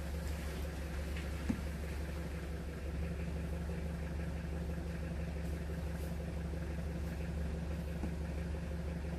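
A motor running steadily, a low even hum like an engine at idle, with one short tick about a second and a half in.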